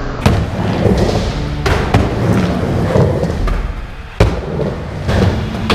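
Skateboard riding in a concrete bowl: wheels rolling, with a few sharp clacks and thuds of the board hitting the surface, the loudest a little past the middle, over background music.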